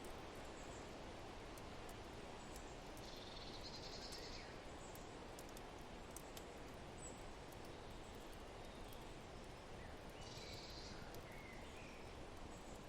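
Faint forest ambience: a steady wind-like rush with scattered small fireplace crackles. Birds chirp twice, about three seconds in and again about ten seconds in.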